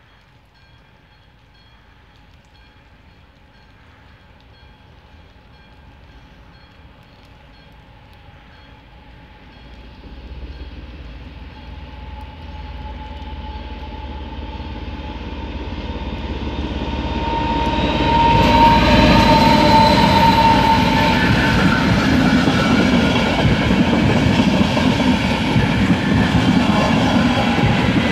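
A Czech 'Brejlovec' diesel-electric locomotive hauling a passenger train, its engine growing steadily louder as it approaches. About 18 seconds in the locomotive passes and the coaches roll by loudly on the rails.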